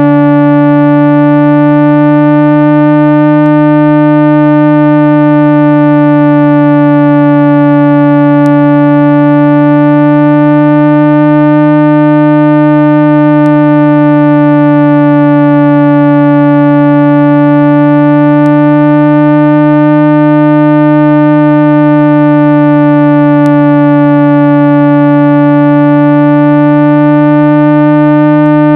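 Continuous 165 Hz speaker-cleaning tone: a loud, steady low electronic hum with overtones that waver slowly, meant to vibrate dust and water out of a phone or earbud speaker.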